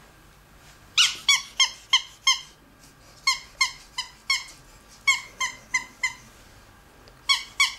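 Ferret squeaking in quick runs of short, high, slightly falling squeaks, about three a second, in four bursts with short pauses between.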